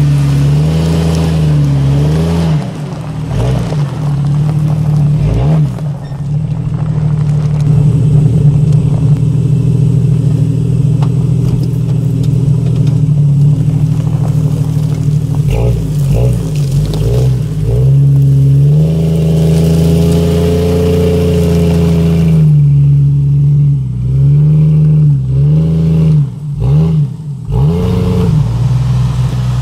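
Jeep Cherokee XJ's engine revving up and down under load as it climbs a steep, rocky off-road slope, the revs rising and falling again and again.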